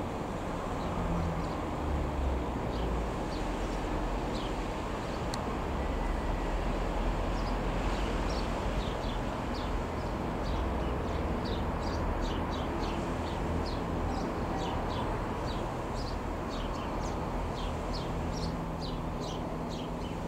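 The single piston engine of a Robin R3000/140 light aeroplane drones steadily overhead, under a low rumble of wind on the microphone. Birds chirp over it in short, high, falling notes that come faster in the second half.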